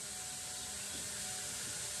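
Steady low hiss of workshop room tone, with no distinct clicks or knocks.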